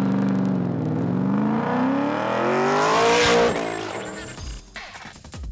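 Ford Mustang race car's 4.6-litre V8 accelerating on track. Its note dips briefly, then climbs steadily in pitch and loudness to a peak about three and a half seconds in, then falls away and fades.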